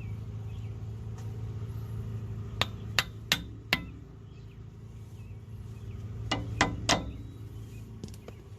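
Hammer striking a chisel to tap a metal wheel-hub dust cap into place, working around its rim. There are four sharp metallic taps in quick succession a few seconds in, then three more a few seconds later.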